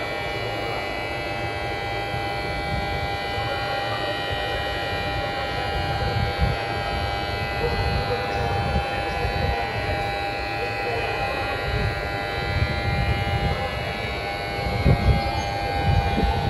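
Station platform emergency-stop alarm buzzing continuously, one steady electronic tone: the warning that a platform emergency stop button has been pressed. A low, uneven rumble runs underneath.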